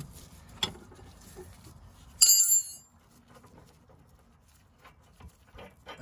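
Metal-on-metal from a ratchet spanner working the nut of a worn anti-roll bar link: a click under a second in, then one loud, short metallic clang that rings briefly about two seconds in, followed by faint small ticks.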